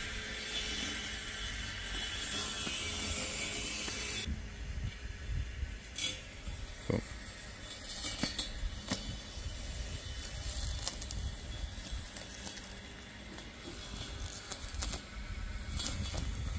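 Ambrogio robotic lawn mower running across the grass: a faint steady machine hum. The sound changes about four seconds in, and scattered clicks and ticks follow.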